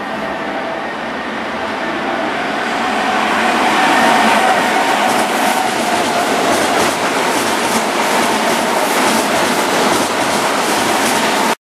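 Keihan 9000-series electric train running in past the platform, growing louder over the first few seconds as it nears, with a faint VVVF inverter motor whine. From about halfway on, the wheels click over rail joints and points as the cars go by.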